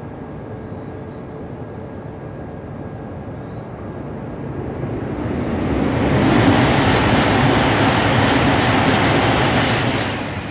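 E5-series shinkansen passing through the station at speed. A rush of air and wheel noise swells over a few seconds, stays loud for about four seconds and falls away near the end.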